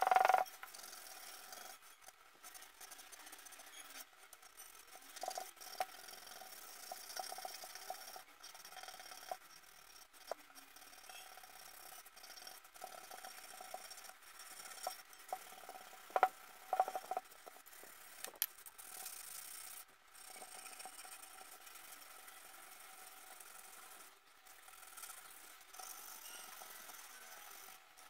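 An abrasive being rubbed and scraped by hand over a copper plate, giving a steady scratchy rasp. A few times the metal gives a short ring, loudest at the very start and a little past halfway.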